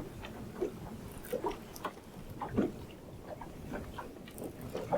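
Irregular small clicks and knocks from a fishing rod and reel being worked as a hooked blue catfish is reeled in.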